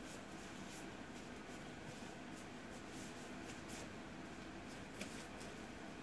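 Faint, scattered light rustles and clicks, the sharpest about five seconds in, over a steady low hiss.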